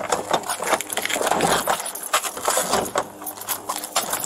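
Close rustling of a police officer's uniform and gear, with irregular clicks and knocks as equipment shifts, and a faint steady hum underneath.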